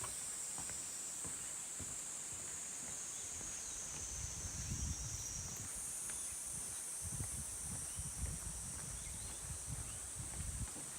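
A chorus of insects keeps up a steady high-pitched drone that jumps up in pitch about halfway through. From about four seconds in, footsteps on a trail make irregular low thuds.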